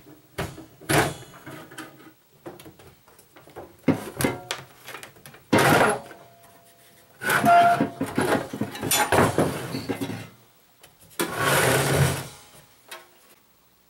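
A screwdriver taking screws out of a Conn ST-2 Strobotune tuner's metal case, then the chassis being slid and lifted out of the case. The sound is irregular clunks, scrapes and rattles of metal on metal and on the wooden bench.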